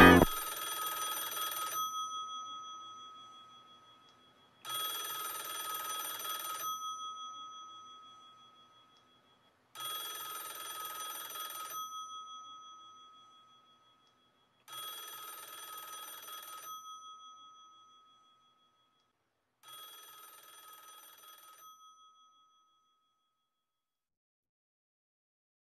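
A telephone ringing five times, each ring about two seconds long with about three seconds between, each ring fainter than the last.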